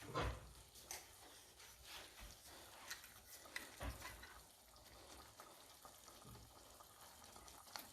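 Faint sizzling of chicken pot pie filling cooking in a pot on the stove, with a few light taps.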